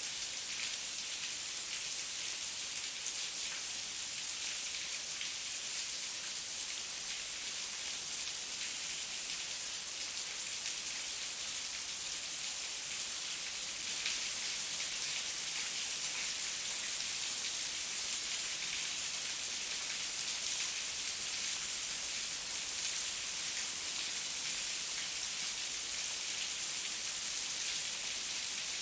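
Heavy rain falling steadily, an even hiss of many drops, getting slightly louder about halfway through.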